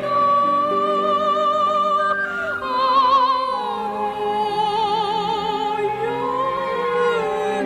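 A woman singing a slow melody in long held notes with a wide vibrato, over soft instrumental accompaniment. Her voice climbs to a higher note about three seconds in.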